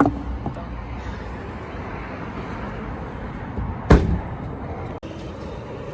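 Steady vehicle noise with two sharp bangs: a short one at the start and a louder, heavier one about four seconds in.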